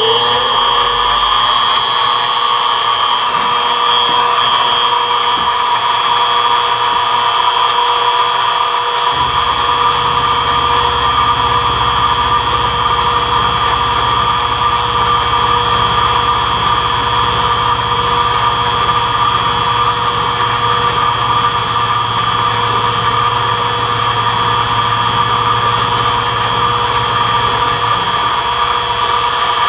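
Mini mill spindle motor spinning up with a rising whine, then running with a steady whine at low spindle speed. About nine seconds in, a 4-flute carbide end mill starts cutting Delrin plastic about a quarter inch deep, adding a low rumble and a hiss that fade near the end as the cut finishes.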